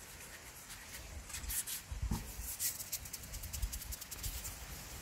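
Palms rolling a rope of tapioca-starch dough on a floured wooden cutting board: soft, repeated rubbing and scuffing strokes, with a low bump about two seconds in.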